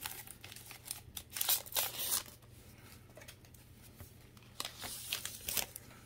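Foil wrapper of a Pokémon trading-card booster pack crinkling in short bursts as it is torn open and the cards are pulled out. Quieter card handling follows, with a few more crinkles near the end.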